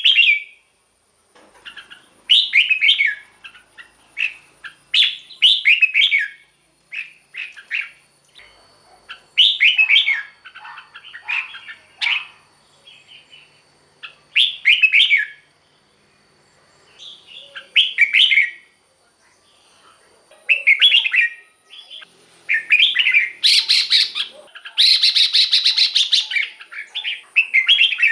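Red-whiskered bulbul singing short, warbling song phrases again and again with brief pauses between them, with a harsher, louder burst of calling near the end.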